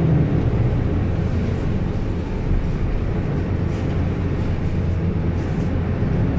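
City bus engine and road noise heard from inside the moving bus, a steady low rumble with an even engine hum.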